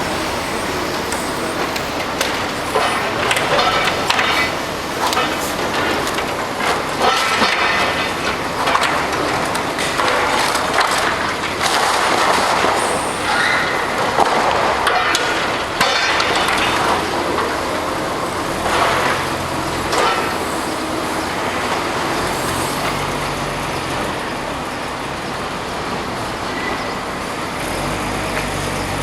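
Demolition noise: heavy machinery running amid continual crunching and clattering of breaking masonry and falling debris, with a steadier low rumble in the second half.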